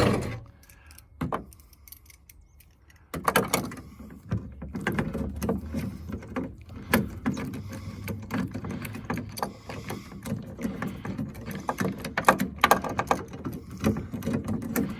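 Rapid metallic clicking and rattling of a wrench working the mirror nuts inside a car door, starting about three seconds in and going on without a break.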